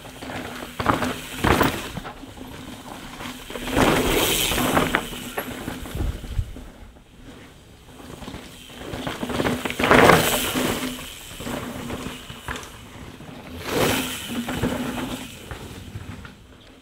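Mountain bike riding hard on a dirt trail. Tyres skid and spray loam and the bike rattles, in three loud surges about four, ten and fourteen seconds in.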